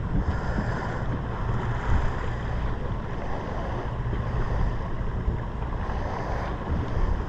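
Sportfishing boat's engine running with a steady low hum, mixed with wind buffeting the microphone and the wash of the sea.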